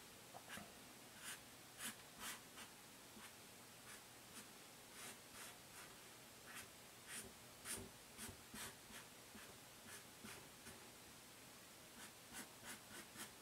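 Felt-tip marker drawing on paper: a string of faint, short, irregular strokes as curves are sketched.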